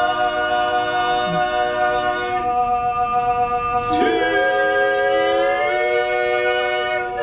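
Four-man barbershop quartet singing a cappella without words, holding long close-harmony chords; the chord changes twice, with a new chord coming in about four seconds in and sliding upward.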